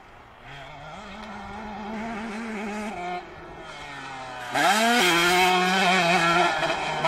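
Motocross bike engines at full throttle: one climbs in pitch and holds steady, drops off about three seconds in, then another revs sharply up about four and a half seconds in and runs loudest at high revs for about two seconds.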